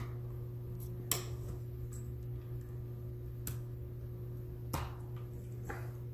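Sharp little clicks and taps, four distinct ones and a few fainter, as a pry tool and fingers work the locking tabs of the ribbon-cable connectors on an opened laptop's motherboard. Under them runs a steady low hum.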